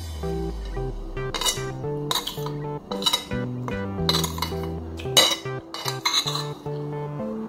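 Metal spoon and fork clinking and scraping against a ceramic plate several times while eating, over background music with a melody.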